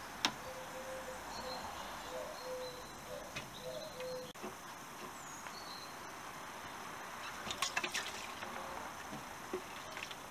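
Hands working a hose clip and rubber coolant hose loose on a VW Golf Mk2 engine to drain the coolant, with a quick run of sharp clicks about three-quarters through over a faint steady hiss.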